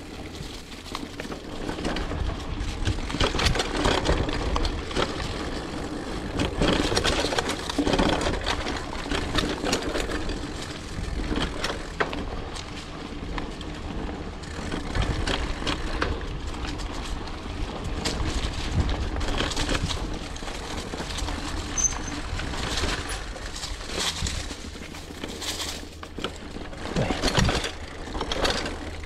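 Mountain bike ridden along a bumpy dirt trail: tyre noise and irregular clatter and rattling of the bike over the rough ground, over a constant low rumble of wind on the helmet camera's microphone.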